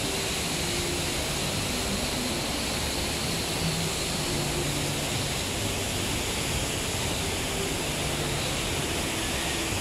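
Steady rushing of a large waterfall, an even unbroken roar of falling water, with faint voices of a crowd murmuring underneath.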